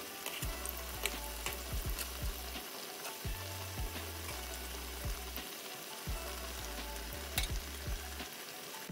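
Onion pakoras deep-frying in hot oil: a steady sizzle with frequent crackling pops, as a metal mesh skimmer stirs and turns them in the oil.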